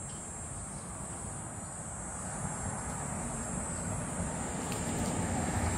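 Outdoor background: a steady high-pitched insect drone over a low hiss of wind noise, slowly growing a little louder.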